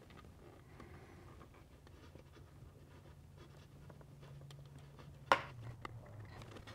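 Faint scratching and small clicks of ferruled wires being handled and fastened into the screw terminals of a Masso G3 controller, with one sharp click a little over five seconds in.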